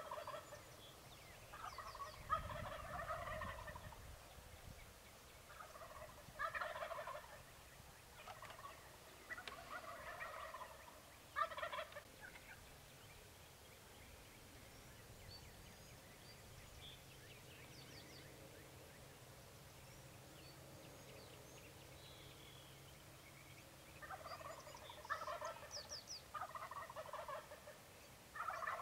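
Wild turkeys gobbling repeatedly, several gobbles in the first dozen seconds and another run near the end, with a quiet stretch in between.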